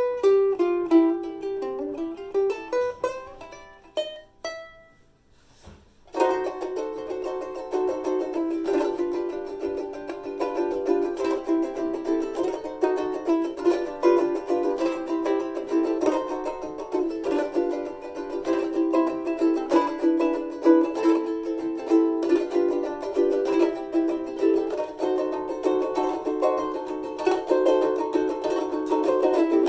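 Soprano travel ukulele played solo: single plucked notes for the first few seconds, dying away to a short pause, then steady rhythmic strumming of chords from about six seconds in.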